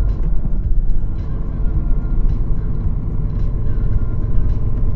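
A heavy truck's engine and tyres give a steady low rumble inside the cab as it drives through a curve, with faint scattered clicks over it.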